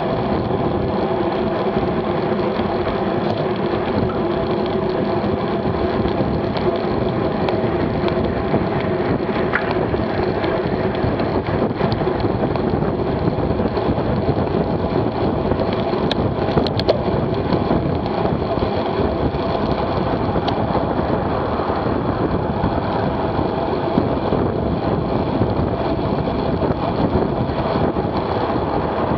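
Steady rush of wind over a bike-mounted camera's microphone, mixed with tyre and road noise, as a road bike rides fast at about 25 to 31 mph.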